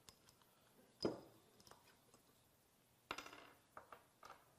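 Metal spacers and washers from a diaphragm pump's major valve clinking on a wooden workbench as they are pushed out and set down: one sharp ringing clink about a second in, then a short clatter of several clinks around three seconds in, with light taps between.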